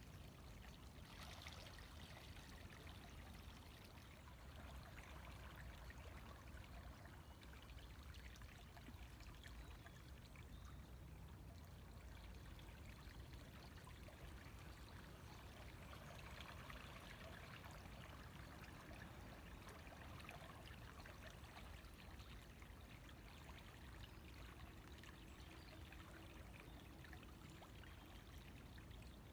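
River water flowing steadily, a quiet, even rushing and trickling.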